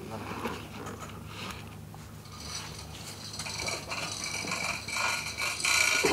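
Spare engine parts being handled in their packaging: plastic wrap rustling and scraping against cardboard and metal, getting louder in the second half.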